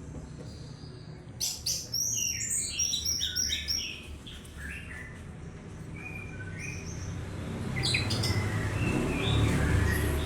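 Orange-headed thrush singing: quick runs of varied, high whistled and chattering notes in two bursts, with a short pause between them.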